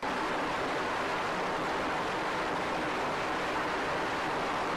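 Twin jet engines of a carrier fighter jet running at high power on the catapult before launch: a loud, steady rush of noise that cuts in suddenly at the start and holds level.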